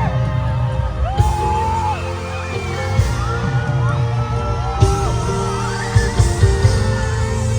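A K-pop song played loud through arena speakers, with a heavy bass line and regular beat hits. Fans scream and whoop over it.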